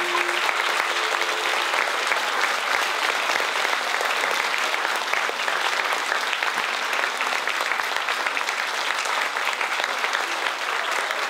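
Audience applauding steadily, dense clapping throughout. The last held note of the music fades out in the first second.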